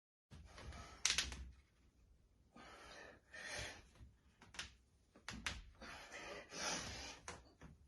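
A person breathing hard in loud gasps, with a few sharp clicks and knocks in between.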